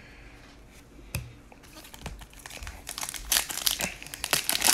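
Foil wrapper of a baseball card pack crinkling and tearing as it is ripped open, quiet at first and growing louder over the second half. A single tap about a second in.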